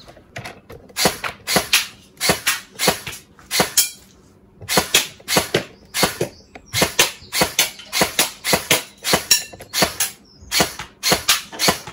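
G&G electric airsoft rifle (AEG) firing a string of sharp, separate shots, two to three a second, with a short pause about four seconds in.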